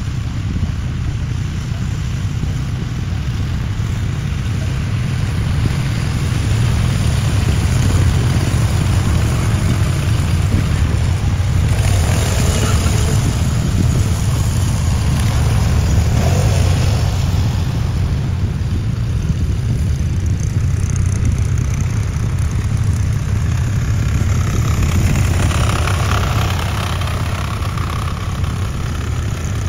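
Small garden tractor engines running steadily as the tractors drive along, a little louder through the middle stretch.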